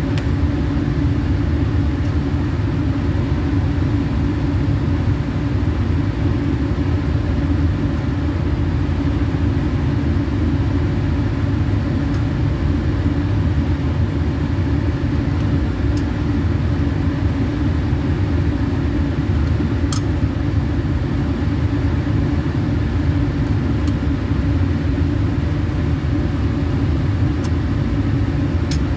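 Lab flow hood's blower fan running, a loud, steady, low rushing hum that doesn't change. A few faint clicks come over it, about halfway through and again near the end.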